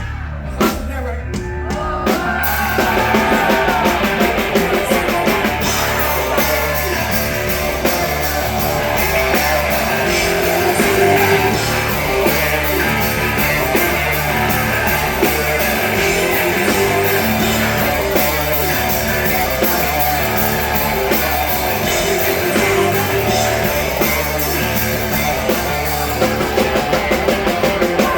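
Live rock band playing loudly: a few separate drum hits, then the full band with drums and electric guitar comes in about two seconds in and plays on continuously.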